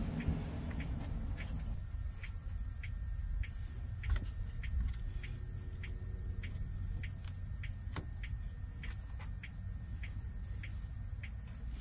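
Light clicks and taps of plastic engine-bay parts being handled, with two sharper clicks about four and eight seconds in. Behind them is a steady high insect drone with faint regular ticks, over a low rumble.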